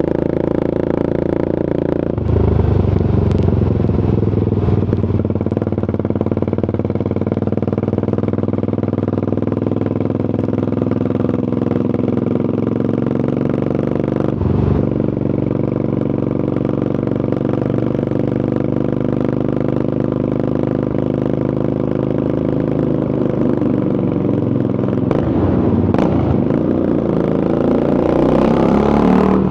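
Triumph Scrambler 400 X's single-cylinder engine running through an aftermarket Zard exhaust while riding. The note steps up about two seconds in, changes briefly around halfway and again late on, and rises near the end.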